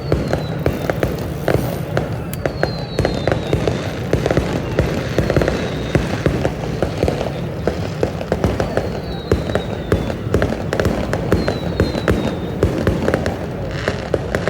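Fireworks display: a dense, continuous run of bangs and crackling, with several short whistles that fall in pitch.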